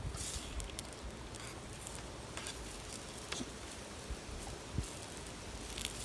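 Small wood fire crackling, with a few sharp, irregular pops over a low rumble.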